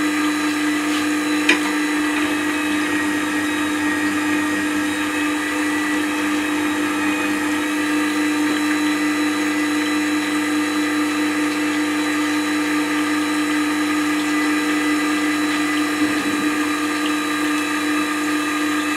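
Record Power WG250 wet stone sharpening system's electric motor running with a constant, steady hum. There is one short click about a second and a half in.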